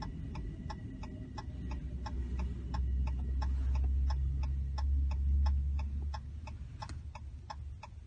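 Hazard warning flasher of a 2018 Ram pickup ticking steadily, about three ticks a second. A low rumble swells under it in the middle.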